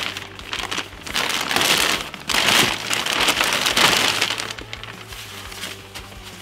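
Clear plastic packing bag crinkling and rustling as it is pulled open by hand, in several loud swishes over the first four seconds or so, then softer rustling.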